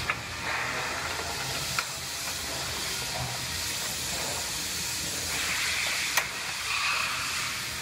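Welder laying a seam weld on a car's steel frame rail: a steady frying hiss with a low hum under it and a couple of sharp pops.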